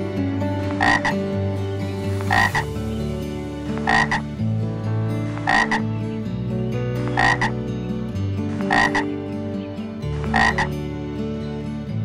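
A frog croaking seven times, one short croak about every one and a half seconds.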